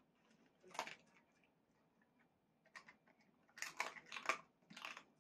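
A dog chewing a hard dried beef-tongue-skin jerky: faint, sharp crunches, one about a second in, another near three seconds, then a quick run of them toward the end.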